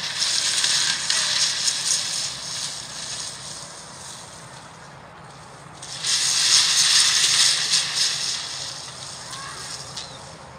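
Two loud bursts of hissing noise, each lasting about three seconds: the first right at the start, the second about six seconds in.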